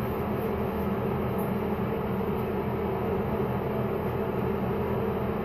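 Steady hum of a running fan over an even hiss, unchanging throughout.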